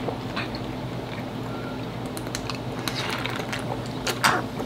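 Close-up drinking sounds: ice clinking in a glass of water and swallowing, heard as a string of short, sharp, irregular clicks over a low steady hum.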